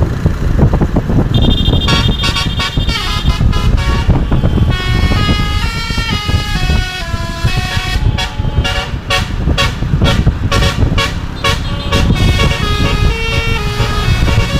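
Telolet bus horn, a multi-trumpet air horn, playing a tune of stepped notes that starts about a second in, with a stretch of quick short toots in the middle, over a steady low rumble.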